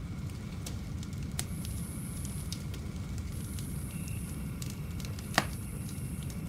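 Wood fire crackling, with scattered small pops and one sharp loud pop about five seconds in, over a steady low rumble.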